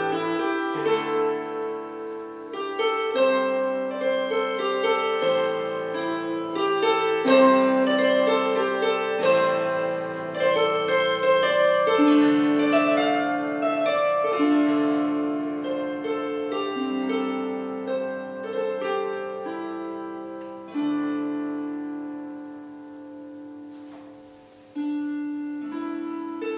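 Wire-strung early Irish harp, a replica of the Trinity College harp, played as a slow solo: plucked melody notes over bass notes, each left to ring on. Near the end a chord is left ringing and dies away for about four seconds before the next notes are struck.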